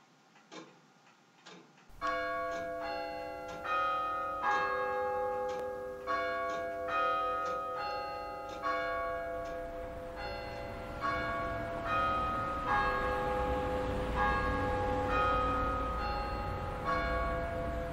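Church bells ringing: a steady run of strikes roughly every half second to second, each left ringing into the next. Faint at first, then much louder from about two seconds in, with a low rumble building beneath them in the second half.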